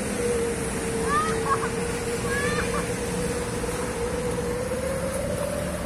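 Road traffic: a steady engine drone from a vehicle on the road, rising slightly in pitch near the end, with a few short high chirps about a second and two and a half seconds in.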